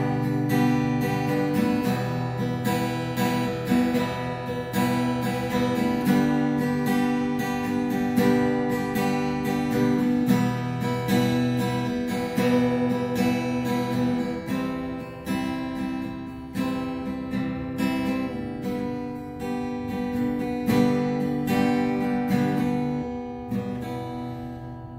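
Acoustic guitar music: strummed chords that change every two seconds or so, growing quieter near the end.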